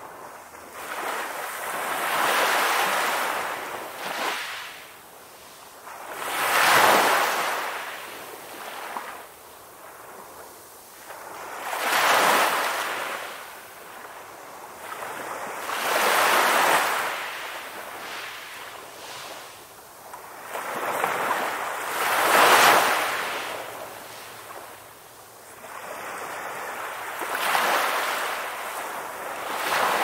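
Ocean surf: waves breaking and washing up the shore, each surge swelling and fading away, about one every four to six seconds.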